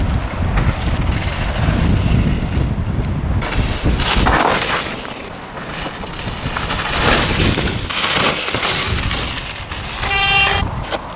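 Wind buffeting the microphone as a low, rough rumble, with noisy surges, and a short steady pitched tone about ten seconds in.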